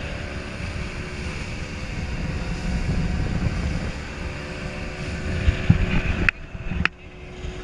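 Motorboat under way: a steady engine rumble with wind noise on the microphone. Near the end two sharp clicks come about half a second apart and the sound briefly drops away.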